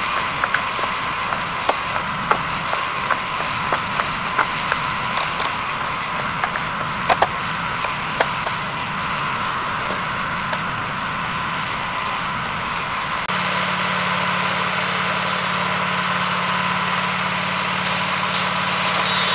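Wood-Mizer LT15 Go portable bandsaw sawmill running steadily, with scattered sharp clicks in the first half. The sound changes abruptly about 13 seconds in, then runs on steadily.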